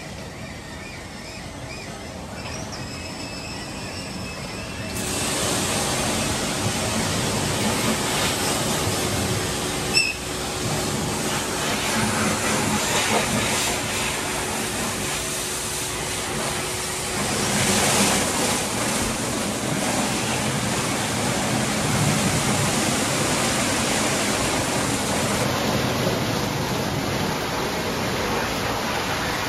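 Istobal M'Start rollover car wash running its brush wash: large rotating brushes spinning against the car amid spraying water, over a steady motor hum. The sound jumps much louder about five seconds in, and there is a single sharp click about ten seconds in.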